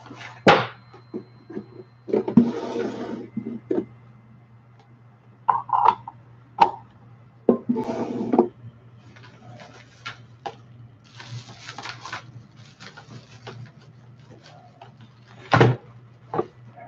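Close handling noise: bursts of rustling about a second long, with scattered sharp knocks and clicks, over a steady low hum.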